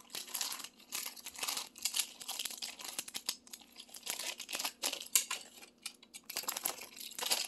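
Crinkling and tearing of a clear plastic retail package being handled and opened by hand to get at a fishing lure, in short irregular crackles.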